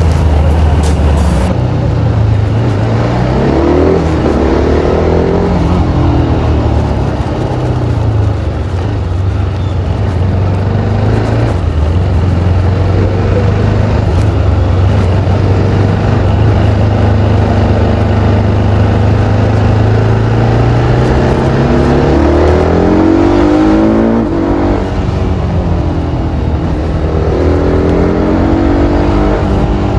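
TVS Apache RR310's single-cylinder engine through its stock exhaust, running while riding in traffic. It holds a steady cruise for long stretches and climbs in pitch several times under acceleration, about three seconds in and again twice near the end.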